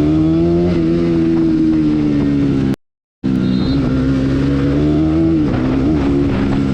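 Bajaj Pulsar NS200's single-cylinder engine running under way at fairly steady revs. Its pitch rises a little and then eases down, and the sound cuts out completely for about half a second near the middle. The engine comes back at a similar pitch, with a brief dip and rise about two-thirds of the way in.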